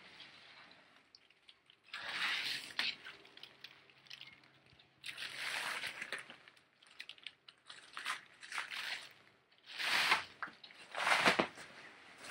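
Plastic stretch wrap being pulled and torn off a cabinet by hand, crinkling and tearing in five or so bursts of about a second each.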